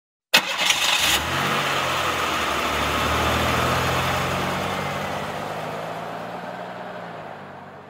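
Vehicle engine sound effect: a sudden loud start with a short burst of rev in the first second, then the engine running steadily and slowly fading out.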